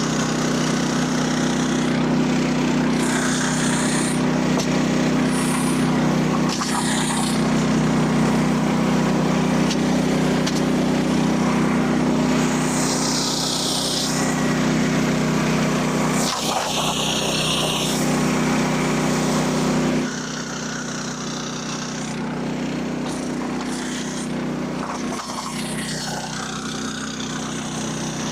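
Small petrol engine of a Frontier OS27 portable band sawmill running steadily at one pitch, with brief hissing bursts as the band blade cuts red oak. The level drops a little about two-thirds of the way through.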